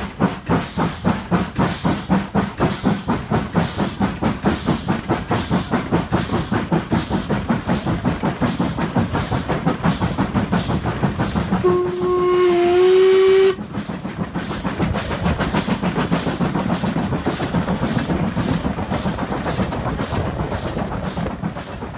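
Steam locomotive working hard, its exhaust beating in a fast, even rhythm. About twelve seconds in, the whistle sounds one blast of just under two seconds and cuts off sharply while the beats carry on.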